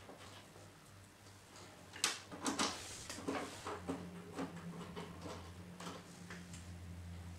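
Light clicks and knocks of screws and plastic machine panels being handled during reassembly, with a steady low hum setting in about four seconds in.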